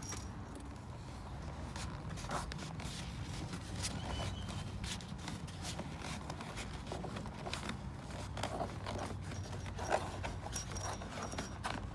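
Handling noises as a cable is worked behind interior trim: scattered small clicks and rustles over a low steady hum.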